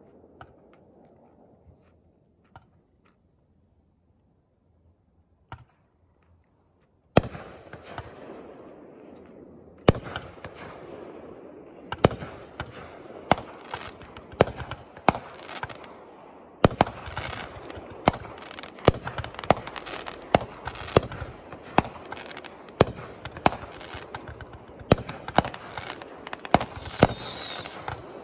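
Fireworks shooting up and bursting: a few faint pops at first, then from about a quarter of the way in a string of sharp bangs, coming faster, about one or two a second, with crackling between them.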